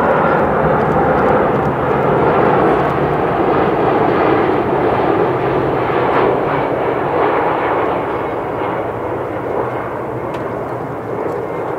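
Jet engines of a Boeing 747-400 airliner passing close by on landing approach: a loud, steady roar of engine and airflow noise with a low hum underneath, easing off gradually over the last few seconds as the aircraft moves away toward the runway.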